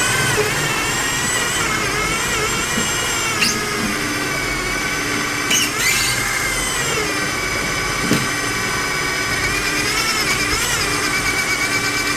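Power drill turning a hole saw through a hole under load: a steady whine whose pitch sags and recovers as the saw bites, with a few short knocks. It is bored straight through with no wiggling of the drill.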